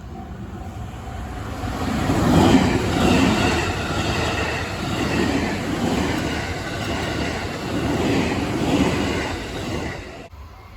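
A train passing over a level crossing, its wheels running over the rails with a clickety-clack. The sound builds over the first couple of seconds, then swells and fades again several times as the cars go by, and drops off suddenly near the end.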